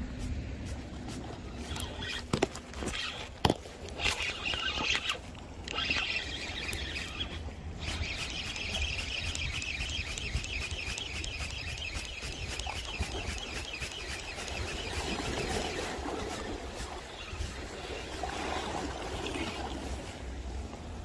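Spinning reel being wound in, a steady whir with short breaks, under the load of a hooked juvenile hairtail pulling on the line. Two sharp clicks come a few seconds in, over a constant low rumble.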